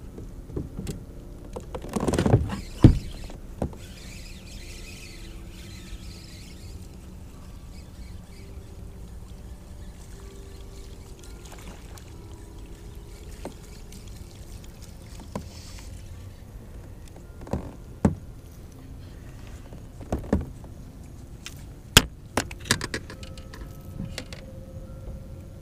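Knocks and clicks of fishing rod and gear being handled on a plastic fishing kayak: a loud clatter about two to three seconds in, then scattered sharp knocks later on, over a steady low background rumble.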